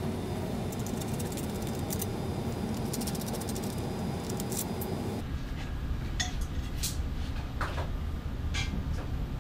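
Light metallic clinks, jingles and knocks from handling the 3D printer's bed plate and small metal hardware on its aluminium frame, over a steady background hum. The background drops abruptly about five seconds in, leaving a few separate clicks.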